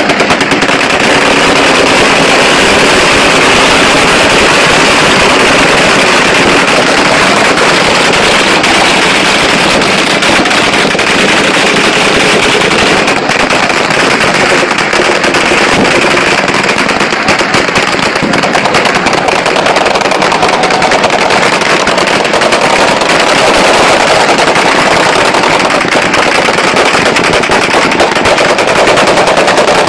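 Celebratory gunfire from many guns at once: rapid, overlapping shots with no pause, loud throughout.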